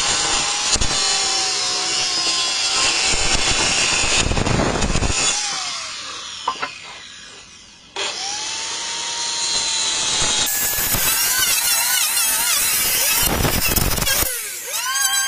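Handheld electric circular saw cutting through a wooden board. About halfway through, the motor winds down and goes quieter, then starts up again with a rising whine and carries on cutting.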